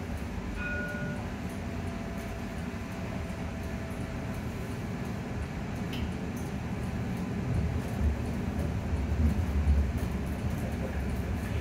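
Edinburgh tram (CAF Urbos 3) heard from inside the passenger saloon: a steady low rumble of running gear and traction equipment that grows louder in the second half. A short high tone sounds about half a second in, then a faint steady whine for a few seconds.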